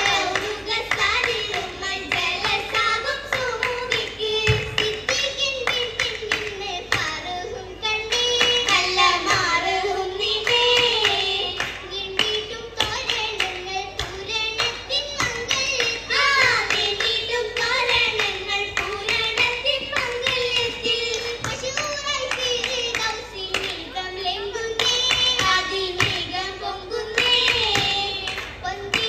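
Oppana performance: a Mappila song sung continuously to the dancers' steady rhythmic hand clapping.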